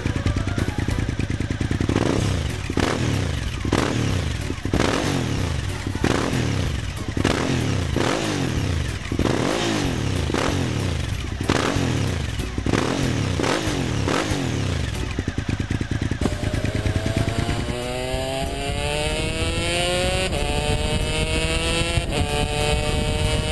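Suzuki V-twin sportbike with aftermarket twin exhausts, idling and then revved in quick throttle blips, about one a second, each rising and falling sharply. About 16 s in, an Aprilia RS 260's two-stroke V-twin takes over, accelerating hard through the gears with its pitch climbing and two upshifts near the end.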